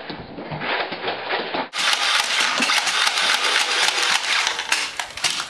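Nerf dart blasters firing in rapid succession, a dense mechanical clatter of many quick clicks with a whirring, fully automatic rattle. It gets brighter and louder from about two seconds in.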